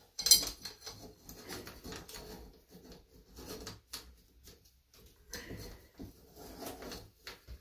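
A metal chain and tools being handled and set up on the seized engine: a sharp clank just after the start, then a run of small clinks and rattles.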